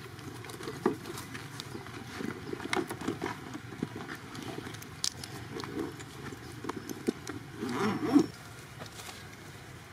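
Outdoor ambience of scattered light taps and clicks. A short, louder rustling sound comes just before 8 seconds in.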